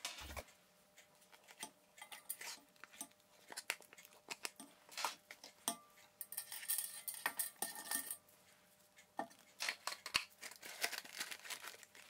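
Mascarpone being scraped out of its plastic tub into a stainless steel mixing bowl: quiet, irregular clicks and taps of the tub and utensil against the bowl, with a stretch of scraping from about six to eight seconds in.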